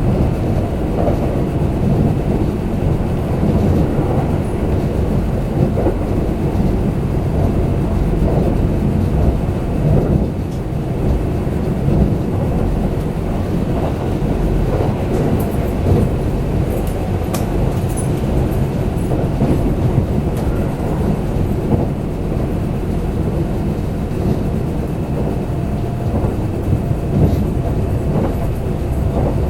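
Kintetsu limited express train running at speed, heard from inside the passenger car: a steady low rumble of wheels on rails, with faint clicks now and then in the second half.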